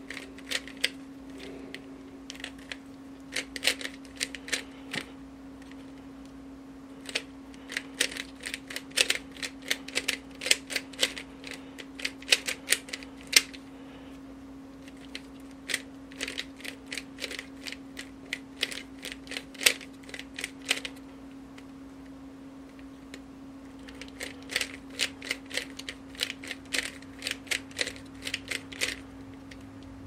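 GuoGuan YueXiao 3x3 speed cube being turned fast by hand during a solve: rapid runs of plastic layer-turn clicks, coming in four bursts with short pauses between them.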